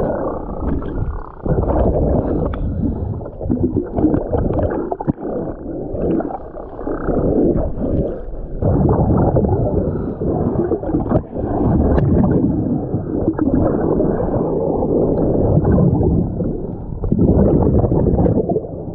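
Scuba diver breathing underwater: long bubbling, gurgling rushes of exhaled air through the regulator, repeating every few seconds.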